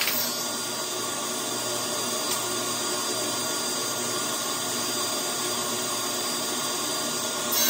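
Table saw running steadily with its blade spinning free between crosscuts, a constant whine with several held pitches.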